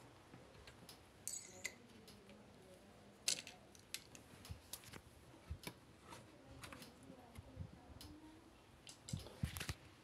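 Faint, scattered clicks and taps from the washer-dryer's rubber door seal and plastic parts being handled, with a sharper knock about three seconds in and a quick cluster of taps near the end.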